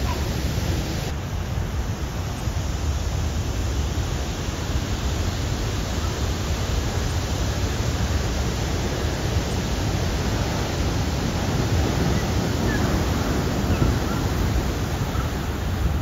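Heavy ocean surf breaking and washing in: a steady rush of noise with a deep rumble underneath.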